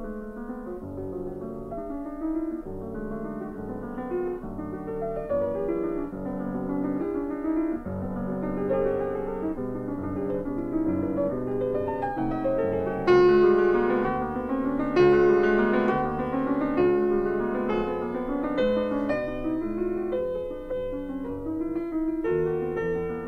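Piano music: a slow melody over chords, with a few louder notes about 13 and 15 seconds in.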